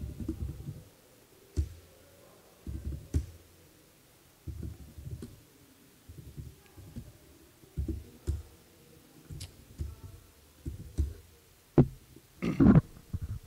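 Laptop keyboard typing: scattered key presses and dull thumps in loose clusters, with a louder, longer dull burst near the end.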